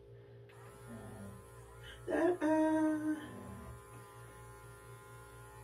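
Electric dog grooming clippers running steadily with a low hum as they trim a standard poodle's face. About two seconds in, a single short vocal note of about a second is louder than the clippers.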